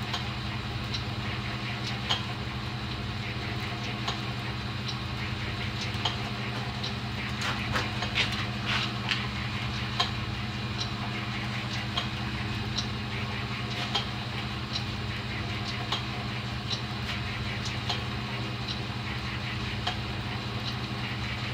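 Belt-driven Champion drill press running under its electric motor with a steady hum while the slow-turning bit cuts into steel, a light click coming about once a second and a quick cluster of clicks about a third of the way through.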